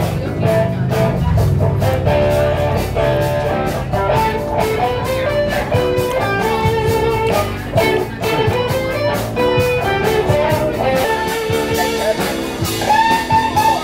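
A live band playing blues-rock, led by electric guitar, with a steady low end underneath.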